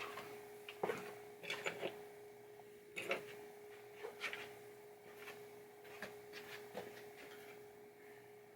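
Light, scattered clicks and taps of small pinball drop target parts and springs being handled, over a steady faint hum.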